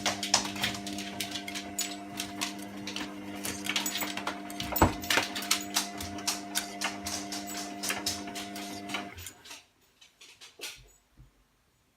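Washing machine running, its motor giving a steady hum while a rapid, irregular clicking rattles on over it; both stop about nine seconds in, leaving a few faint clicks.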